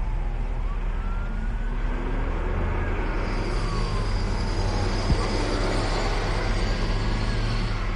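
Distant emergency-vehicle sirens wailing, their pitch slowly rising and falling, over a steady low engine rumble. A single sharp click comes about five seconds in.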